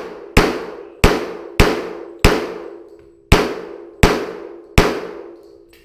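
Semi-automatic pistol fired seven times in a quick string, shots a little over half a second apart with a longer gap of about a second in the middle. Each shot is followed by a short ring of indoor-range echo.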